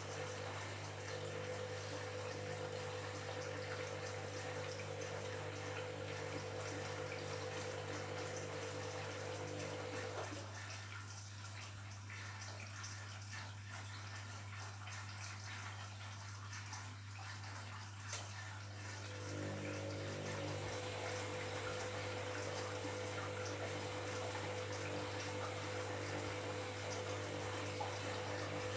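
Washing machine taking in water through its inlet over a steady low hum. The inflow stops about ten seconds in and starts again near twenty seconds, with a single sharp click shortly before it resumes.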